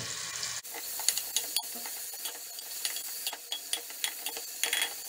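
Small-diced salted onion sizzling in olive oil in a pressure cooker as it browns, while it is stirred, the utensil scraping and clicking irregularly against the pot.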